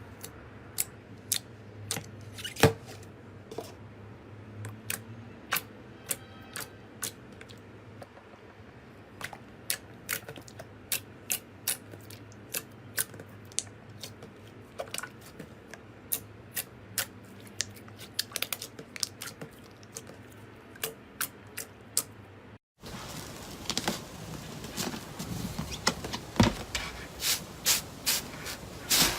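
Slime being pressed and worked by hand, giving a long run of sharp, irregular clicks and pops as trapped air bubbles burst. After a cut about 23 s in, a denser crackling with more pops takes over.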